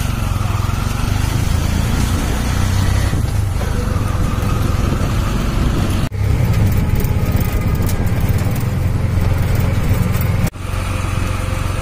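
Steady low rumble of a motor vehicle running, with two sudden brief dips, about six seconds in and again near the end.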